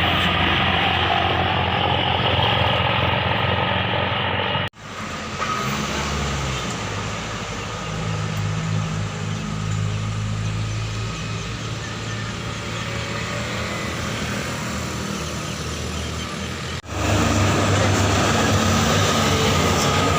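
Road vehicles running past, a steady engine hum under traffic noise, with no horn melody clearly standing out. The sound breaks off abruptly twice, at about five seconds and again near seventeen seconds, and then resumes.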